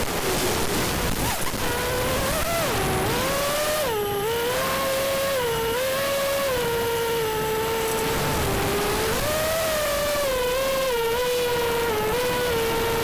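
Electric motors and propellers of an FPV quadcopter whining in flight. The pitch rises and falls by small amounts every second or so as the throttle changes.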